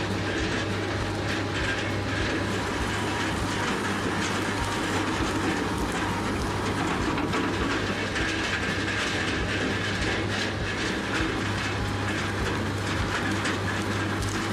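Industrial wood shredder running under load: a steady low engine and rotor drone with constant irregular clattering and knocking as wood is fed through and broken up.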